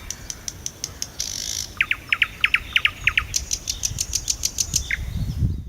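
Nightingale singing: a run of sharp clicking notes, then a quick series of about eight short whistled notes, then a faster burst of high clicks.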